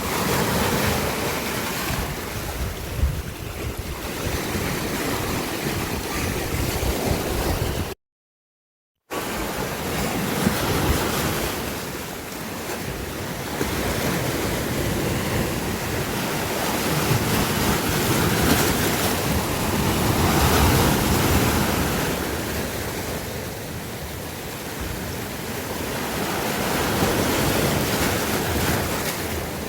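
Sea waves surging and washing in slow swells, with wind buffeting the microphone. The sound drops out completely for about a second some eight seconds in.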